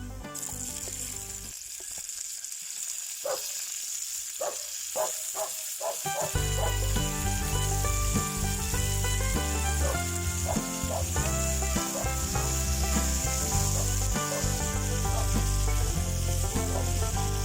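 Chicken gizzards and green onions sizzling steadily in a skillet over a campfire. Background music comes in about six seconds in.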